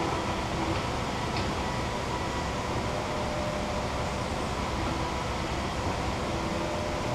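Steady, even background noise with a faint hum, and one light click about a second and a half in.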